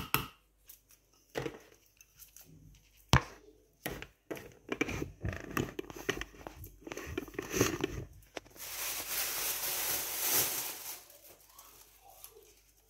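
Handling of a glass blender jug and kitchen utensils: scattered clicks and knocks, the loudest about three seconds in, then a few seconds of hissing rush from about eight and a half seconds in.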